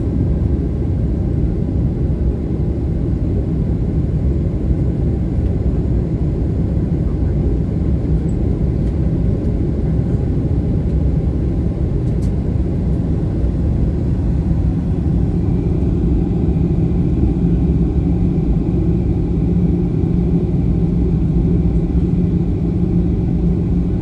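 Steady low rumble of a moving vehicle, with a faint steady hum joining in about fifteen seconds in.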